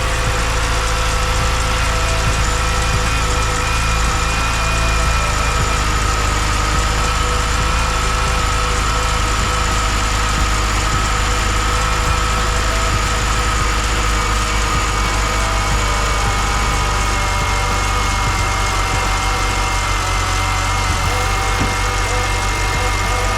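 BMW E9X engine idling with a steady, high-pitched squeal from the accessory drive belt system, the belt squeal that is the fault being diagnosed.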